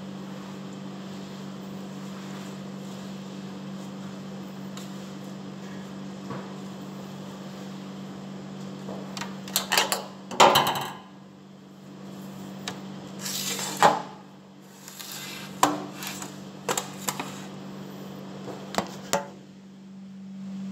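Steady low hum of kitchen equipment. From about nine seconds in come a series of knocks, clinks and rustles as a glass vase of flowers is handled and set down at a stainless-steel sink.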